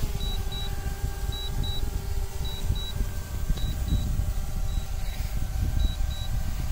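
Small quadcopter drone's propellers humming steadily as it hovers low and sets down on the grass, the hum fading after about the middle. Wind rumbles on the microphone throughout, and pairs of short high beeps repeat about once a second.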